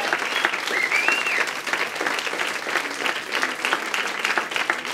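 Audience and performers applauding: dense, steady clapping from many hands.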